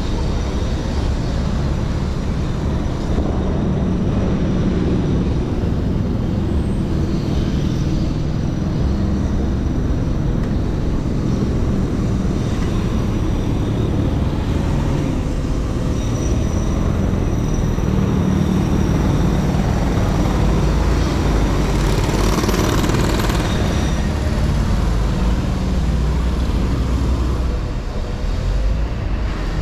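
City street traffic heard from a moving bicycle: a steady low rumble of vehicles and road noise, with no break.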